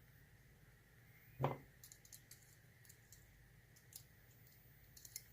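Faint, light clicks of small lock-cylinder pins being handled and moved about one by one, with one short louder knock about a second and a half in.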